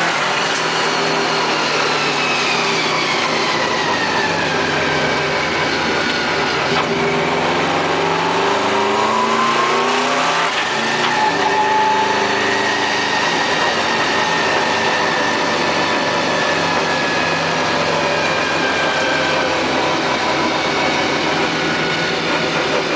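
A car's engine and road noise heard from inside the cabin while driving: the engine pitch falls over the first few seconds, climbs again as it accelerates, then jumps down about ten seconds in and holds fairly steady.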